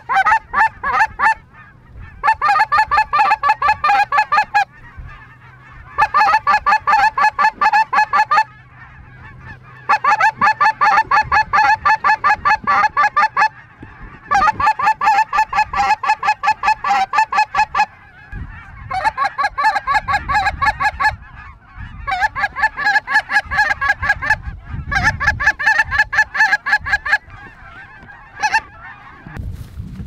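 Goose calling: rapid, loud honks and clucks in about seven bursts of two to four seconds each, separated by short pauses.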